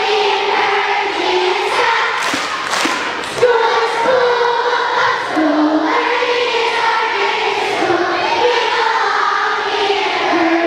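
A large group of elementary schoolchildren singing their school song together in unison, phrase after phrase.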